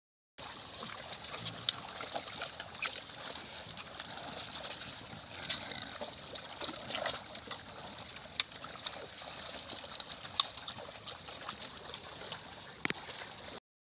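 Pigs wading and rooting in shallow muddy water: steady sloshing and trickling with many small wet splashes and clicks, and one sharper snap near the end.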